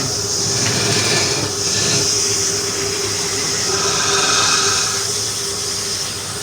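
Woodturning lathe running with a steady motor hum, under a loud hiss that swells and eases as a tool cuts the spinning wood.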